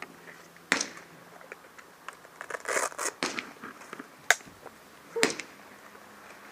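A few scattered sharp clicks and knocks, with a short scuffing rustle around the middle.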